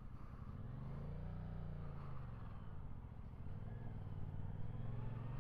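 2023 Yamaha MT-07's parallel-twin engine pulling away under acceleration: its pitch climbs, falls away about two seconds in, then climbs again toward the end.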